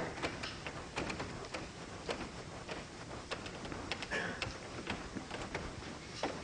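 Irregular light clicks and taps, a few a second, over a low room background.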